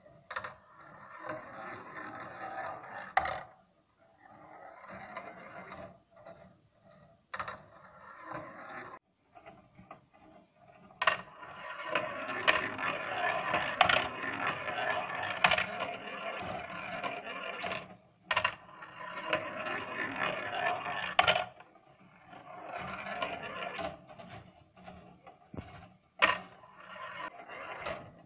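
Steel balls rolling down the plastic tracks of a 3D-printed marble machine: a rolling noise that comes in runs of a few seconds, the longest lasting about ten seconds, with sharp clicks several times as balls drop onto the track or strike each other.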